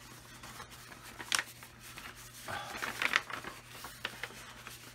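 Paper rustling as a manila envelope is handled and opened, with short scratchy rustles about a second and a half in and again around three seconds in.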